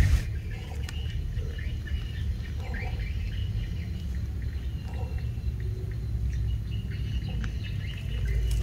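Birds chirping and squeaking in short scattered calls over a low steady rumble.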